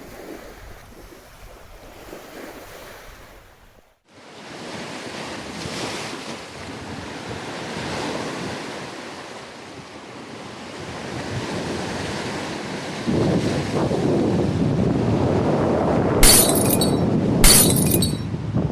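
Sea waves washing against the rocks with wind buffeting the microphone, a steady rushing that cuts out briefly about four seconds in and swells louder in the second half. Two sharp knocks come about a second apart near the end.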